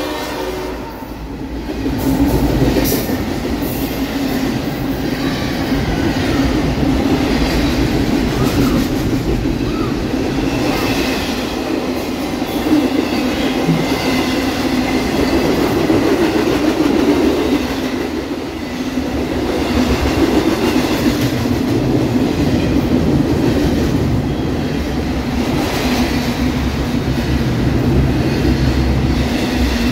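Double-stack intermodal freight cars rolling past close by: a steady, loud rumble of steel wheels on rail with clickety-clack over the rail joints and faint wheel squeal at times.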